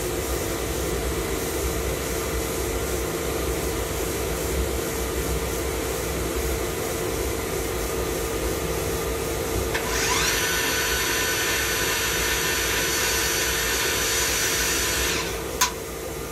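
Swistek RB20Y CNC Swiss-type lathe running with a steady hum. About ten seconds in, a spindle spins up with a quick rising whine, runs at speed for about five seconds, then stops, followed by a single sharp click.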